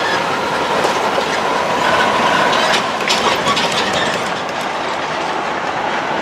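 Freight train rolling past over the crossing: a steady rumble of wheels on rail, with a few sharp clacks and a faint wheel squeal.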